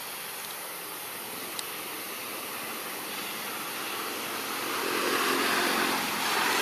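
Steady rushing outdoor background noise that grows a little louder about five seconds in, with a faint tiny tick near the start.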